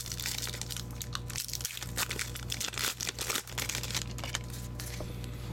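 Plastic hockey card pack wrappers crinkling as they are handled, in scattered short crackles over a steady low hum.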